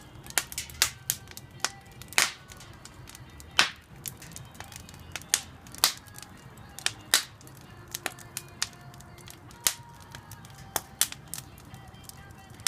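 Wood fire burning in a stainless-steel washing-machine drum fire pit, crackling with irregular sharp snaps, one to three a second, over a low steady rumble.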